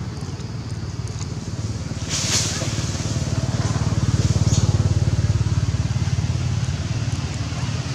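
A vehicle engine running close by, a low pulsing rumble that swells to its loudest around the middle and eases off toward the end, like a vehicle passing. A brief rustle about two seconds in.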